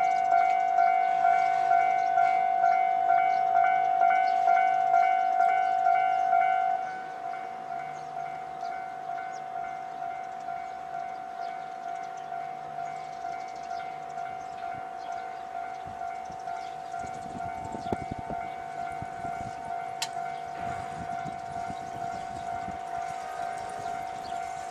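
Japanese level-crossing warning bell ringing steadily at about one and a half to two rings a second; it drops in volume about seven seconds in. A train's rumble and clatter comes in faintly from about sixteen seconds.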